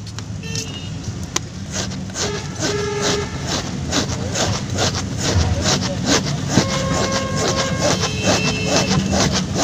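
Flat steel file rasping quickly back and forth over a rubber inner tube, roughing up the rubber around a burst to prepare it for a patch. Behind it, a steady pitched tone sounds twice.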